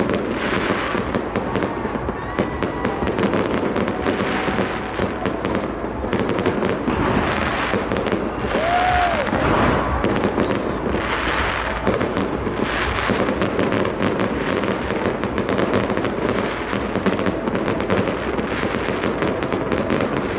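Fireworks display going off in a rapid, continuous run of bangs and crackles. A brief whistling tone rises and falls about nine seconds in.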